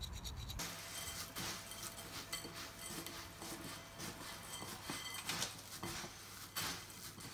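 A hand tossing crisp fried kara boondi (gram-flour pearls) with chilli powder in a glass mixing bowl: an irregular run of rattling, rustling sweeps with light clinks against the glass.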